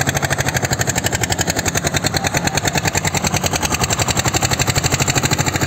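Diesel farm tractor engine running steadily while it drags a rear levelling blade through sandy soil, with a fast, even throb of firing pulses.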